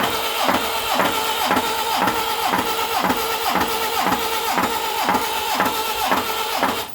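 1959 Mercedes-Benz 190SL's four-cylinder engine turning over on the starter with only one spark plug fitted and no spark. It makes a steady starter drone with a heavy knock about twice a second, then stops near the end. It sounds like a single rod knock, but the owners doubt a bad rod bearing and suspect the starter or flywheel.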